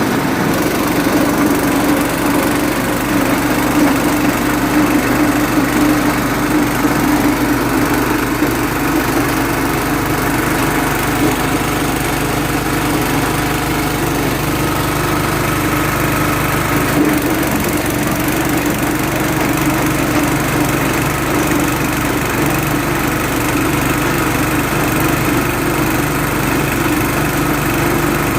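Livestock feed chopper machine running steadily, its engine or motor and spinning blades making a continuous loud hum.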